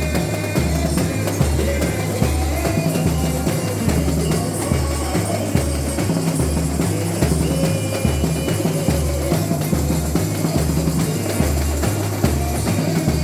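Samba school bateria playing samba: a percussion ensemble whose deep surdo bass drums beat a steady, even pulse under the higher drums.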